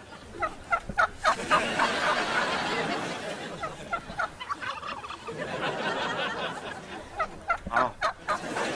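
Turkey gobbling in three bursts of short, rapid notes.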